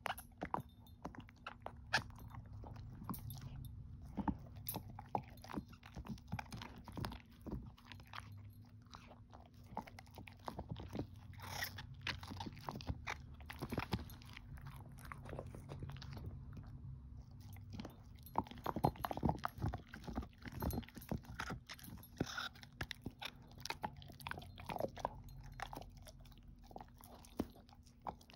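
A shepherd-mix dog chewing and gnawing a hard "everlasting" chew treat: irregular crunches, bites and wet mouth clicks, busiest around the middle.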